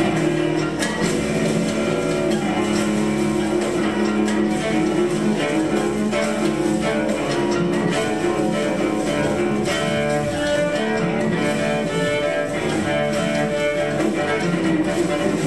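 Cello playing continuously, mostly sustained low notes.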